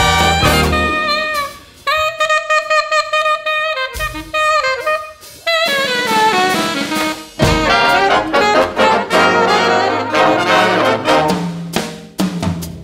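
Live big band jazz with an alto saxophone solo: the saxophone plays nearly alone for a few seconds in the middle, then drums, bass and the band come back in about halfway through.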